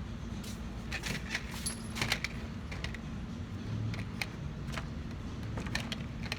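Scattered light clicks and rattles of small hard objects being handled, densest about a second in and again near the end, over a steady low hum. No gunshots.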